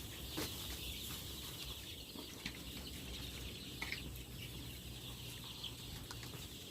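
Large flock of eight-day-old layer chicks peeping continuously, a dense high chatter. The keeper says nearly the whole flock is 'snoring' (ngorok), rattling breathing that is a sign of respiratory trouble, which he blames on cold sea wind from an opened outer curtain.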